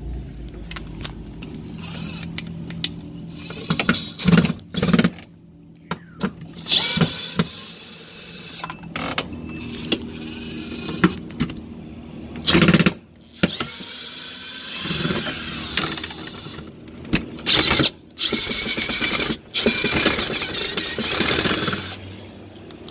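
Power drill-driver whirring in several short runs, backing out the screws that hold a refrigerator freezer's inner back panel, with clicks and knocks between the runs.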